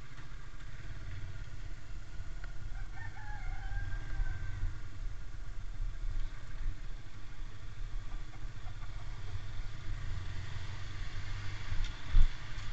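Motorcycle engine running at low speed with a steady low hum. A rooster crows once in the background about three seconds in, and there is a sharp knock near the end.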